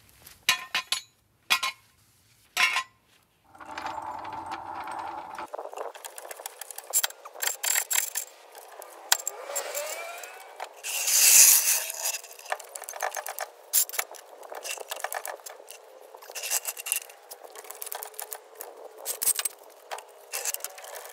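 Metal clanks and clinks from a steel jack stand and a hydraulic floor jack being handled and set under a car, with short squeaks from the jack as it is worked.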